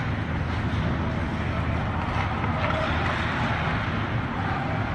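Steady ambient noise of a near-empty hockey arena during practice: a constant low hum with faint distant voices.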